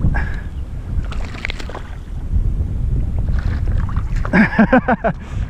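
Low wind rumble on the microphone and water sloshing around a kayak, with a man's short wordless cry about four and a half seconds in.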